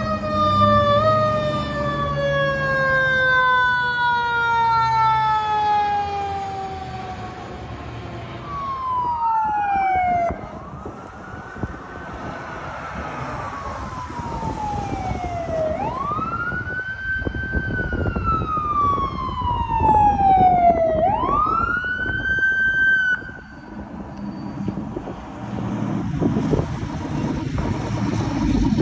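Fire apparatus sirens. First a siren slides slowly down in pitch over several seconds. Then a wail siren rises and falls in pitch several times. Near the end a heavy engine rumble takes over as a fire engine passes.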